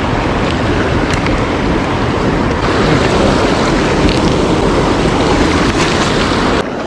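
Steady rush of a fast-flowing trout creek running high, loud and even, dropping away suddenly near the end.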